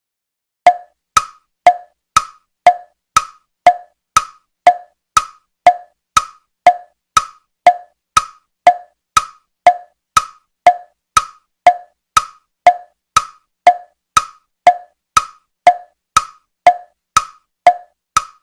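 Wood-block-style tock sound effect repeated at a steady beat, about two hollow knocks a second, each one the same.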